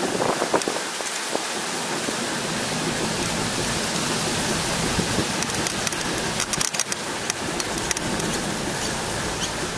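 Steady rush of wind over the microphone and tyre noise from a bicycle rolling along a paved path, with a short cluster of small clicks and rattles about two-thirds of the way through.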